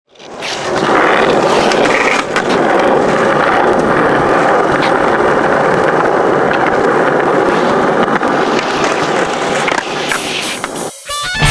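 Skateboard wheels rolling over rough pavement, a loud steady rumble with scattered clacks of the board. The sound drops out briefly near the end.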